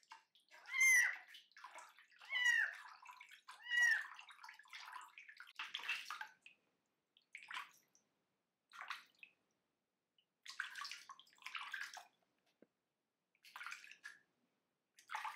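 A 25-day-old kitten crying out three times in loud, high calls that rise and fall, a harsh cry the owner calls barking. Then water splashing in a sink in short bursts as the kitten is washed.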